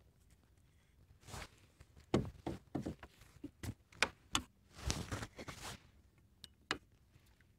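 Irregular knocks, taps and short scuffing noises from fishing gear being handled on a plastic kayak while a hooked fish is landed, with a denser cluster of noises about halfway through.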